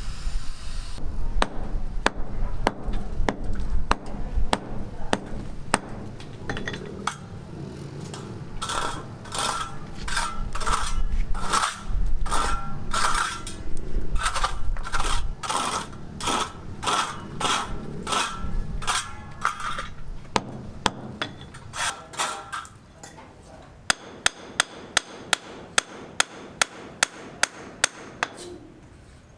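Hand hammer strikes, with a low rumble under the blows in the first half. In the middle stretch the blows come quickly and ring like metal being struck. Near the end they settle into a steady run of sharp blows, about two to three a second.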